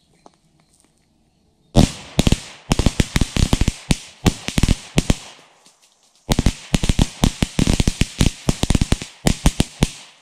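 Flat ground firework going off in two rapid, irregular runs of sharp firecracker bangs, several a second with a hiss behind them, the runs split by a brief pause.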